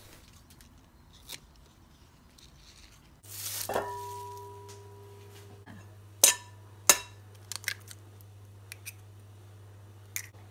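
Glass mixing bowl ringing briefly when struck, followed by sharp clinks and taps of a spoon and an egg against the bowl, the two loudest close together in the middle. An egg is cracked open over minced pork near the end, over a low steady hum.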